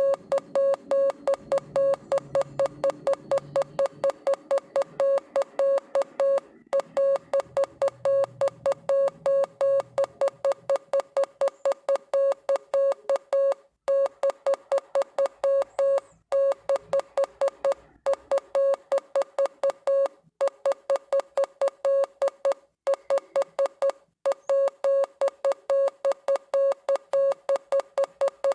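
Morse code: a single mid-pitched electronic beep keyed on and off in quick dots and dashes, with short pauses between words.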